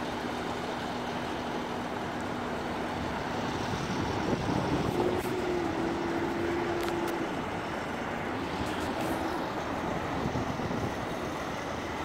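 Steady drone of heavy construction machinery running. A low hum fades out a few seconds in, and a slightly higher hum is held for about two seconds midway.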